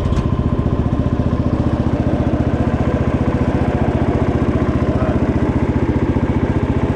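Cub Cadet 147 garden tractor's single-cylinder engine running steadily with a rapid, even firing beat.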